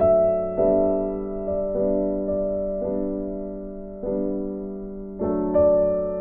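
Background music: a piano playing slow, soft chords, a new chord struck every second or so and fading away.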